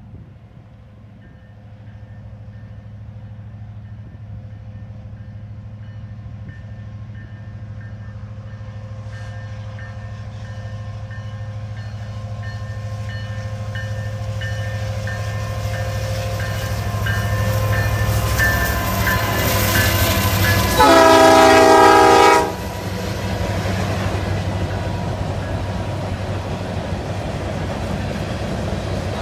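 Canadian National freight train approaching behind its diesel locomotives, the engine rumble growing steadily louder for about twenty seconds. A single short blast of the air horn sounds about three quarters of the way through and is the loudest moment. The train then rolls past with steady wheel and rail noise.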